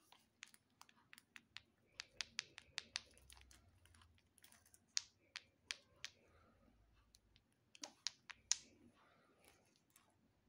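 Faint, sharp, irregular clicks and taps as hard-candy lollipops are handled, knocking against each other and against fingernails, in small clusters with short pauses between.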